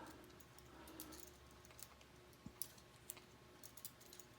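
Faint, irregular clicks of plastic K'nex pieces being handled and slid up along their rods.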